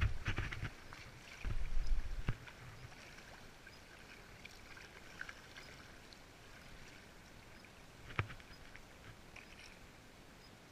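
Canoe running down a fast alpine river: a steady soft rush and patter of water along the hull. There are low rumbles in the first two seconds and a single sharp knock about eight seconds in.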